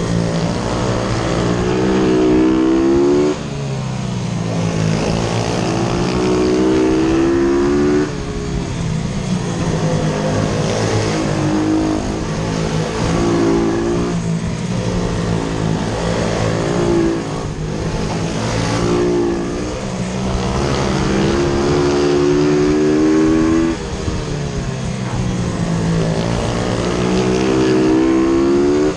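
YCF F125 pitbike's single-cylinder four-stroke engine, heard from on board, revving up in rising pitch along each straight and cutting back sharply as the throttle is shut for each corner, several times over.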